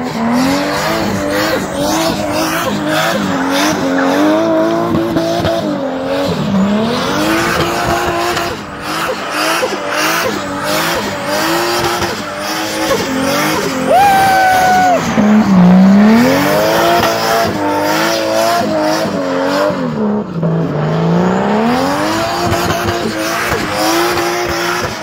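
Nissan Silvia doing a burnout: its engine revved hard and held high, the revs dropping and climbing back several times, with the rear tyres spinning and squealing. The loudest moment, with a brief steady squeal, comes about halfway through.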